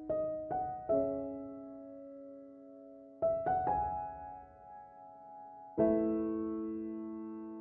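Slow background piano music: notes struck a few at a time and left to ring and fade, in groups near the start, a little past the middle, and a chord about three-quarters of the way through.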